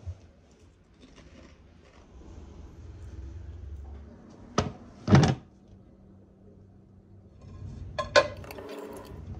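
Ceramic bundt cake pan knocking down onto a wooden cutting board, a sharp knock followed by a louder one, then a short clatter near the end as the pan is turned over onto a plate.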